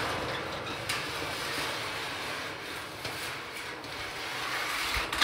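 Long barn-red metal roofing panel being dragged up over the roof edge and slid across the sheathing: a continuous scraping, rumbling rub with a few light knocks, ending in a sharp clank.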